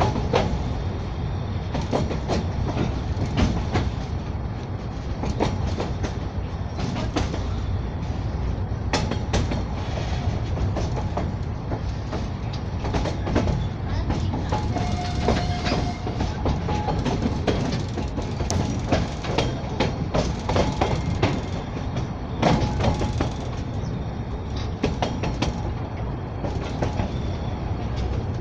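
A narrow-gauge children's railway train running along the track, heard from aboard. There is a steady rumble of the carriage with irregular clacks and knocks as the wheels pass over rail joints.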